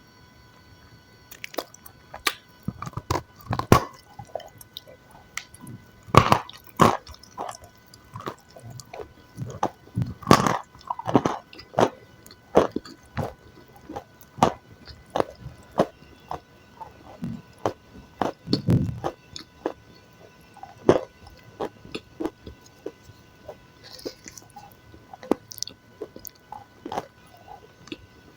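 Close-miked chewing and biting of food, with irregular crunches and mouth sounds.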